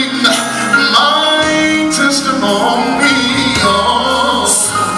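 Male gospel singer singing into a microphone over instrumental accompaniment with a steady bass line, holding long, sliding notes without clear words.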